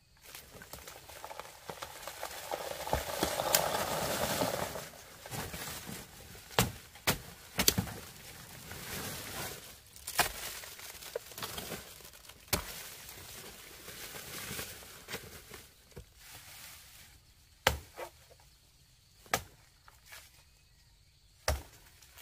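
Dry banana leaves rustling and crackling as a banana plant is climbed, swelling into a loud rush of leaf noise a few seconds in. Then scattered sharp knocks and snaps, about seven, a second or more apart.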